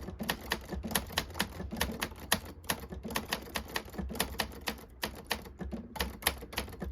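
Typing on a 1965 Commodore (Consul 1511) manual typewriter with a very light touch: a quick run of key strikes, about six a second.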